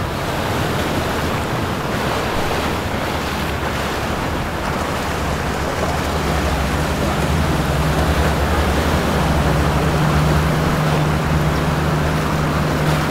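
Steady rush of water and wind noise on the microphone, with a boat motor's low drone that grows louder about halfway through.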